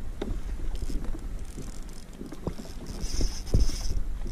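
Wind rumbling on the microphone, with scattered knocks and bumps of handling aboard a plastic kayak, and a brief hiss about three seconds in.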